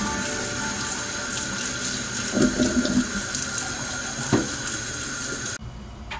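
Water pouring off a stainless steel pot into a kitchen sink as the cooking water is drained from parboiled green ume plums, with a few light knocks. It cuts off suddenly near the end.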